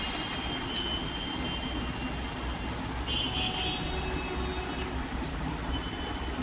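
Steady background noise with a constant low hum, under a few faint soft clicks of eating by hand: fingers mixing rice on a plate and chewing.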